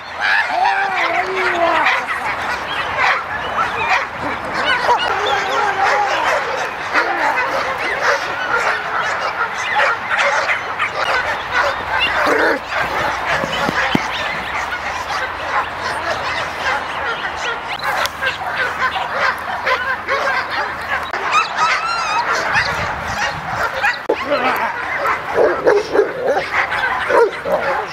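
Dogs barking and yelping excitedly, many calls overlapping without a break.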